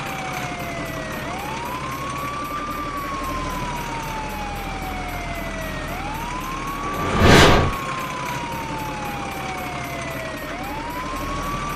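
A siren wailing in slow cycles, each a quick rise then a long falling glide, repeating about every four and a half seconds over a steady low hum. A loud whoosh cuts across about seven seconds in.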